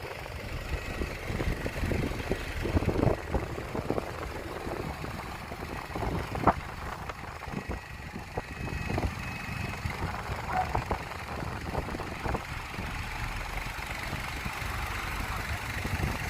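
Diesel engine of heavy earthmoving equipment running at idle, with irregular knocks and clanks scattered through.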